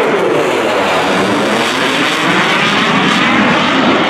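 F-16 fighter jet passing overhead, its jet engine noise loud and steady with a slowly sweeping, phasing tone as it goes by.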